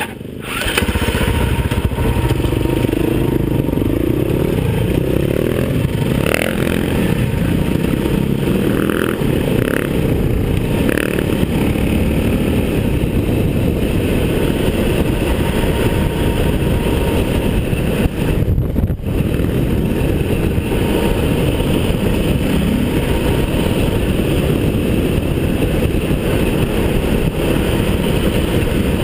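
Enduro motorcycle engine heard from on board, opening up sharply about a second in and then held hard at speed down a gravel track, with wind rush and the clatter of the bike over loose stones. There is one brief dip in the engine about two-thirds of the way through.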